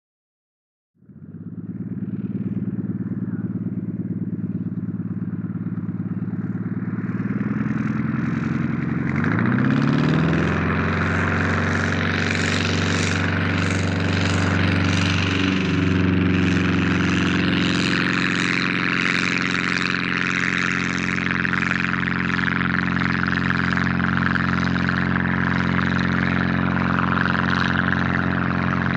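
Engine and propeller of a single-prop Demoiselle monoplane starting up about a second in at low power. About nine seconds in it revs up to full power for the take-off run, then runs steadily at full throttle.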